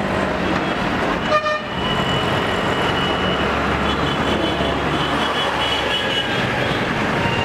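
Busy street traffic: a steady engine rumble with a short horn honk about a second and a half in and fainter horns through the rest. The low engine rumble drops away about six seconds in.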